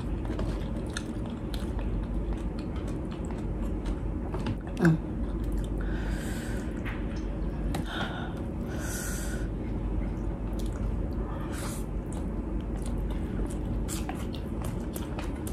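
Close-up chewing and lip-smacking of a mouthful of food, many small wet clicks, with a brief hum about five seconds in and a few breathy hisses in the middle.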